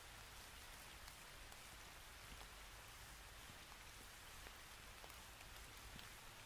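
Near silence: a faint steady hiss with a few scattered faint ticks.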